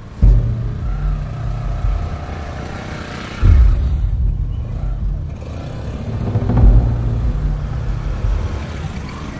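Motorcycle engines running and revving, with pitch rising and falling, and three sudden deep surges about three seconds apart.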